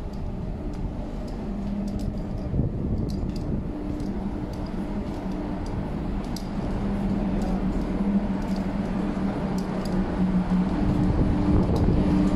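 Low steady rumble of a container ship under way, its running machinery humming at two pitches that fade in and out, growing louder toward the end, with faint scattered ticks.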